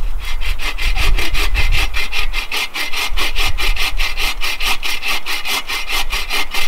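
Bow saw cutting through a log by hand, in quick, even back-and-forth strokes, several a second.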